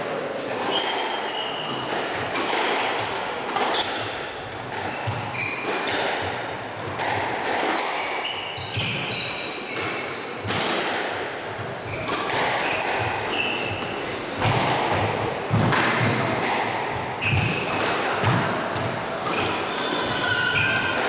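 A squash rally: the ball struck by rackets and smacking off the walls in a run of sharp hits about once a second, with shoes squeaking on the wooden court floor between the shots.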